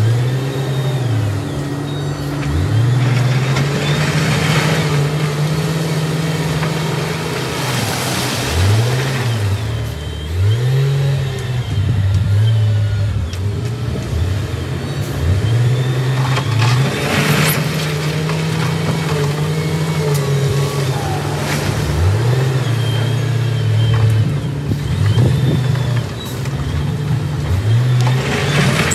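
Wheel loader's diesel engine revving up and dropping back again and again as it pushes and dumps rock, with short bursts of crunching, rattling rock every few seconds.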